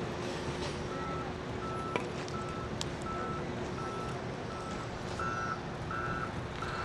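Volvo wheel loader's reversing alarm beeping at a steady, even pace, about three beeps every two seconds, starting about a second in and growing louder near the end, over the diesel engine's steady running.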